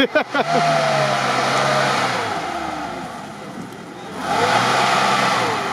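Lada Niva's engine revving hard under load in two long surges, easing off for a moment about three seconds in before rising again.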